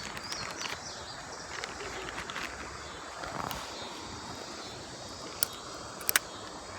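Outdoor riverside ambience: a steady background hiss with a few brief bird chirps near the start and two or three sharp clicks near the end.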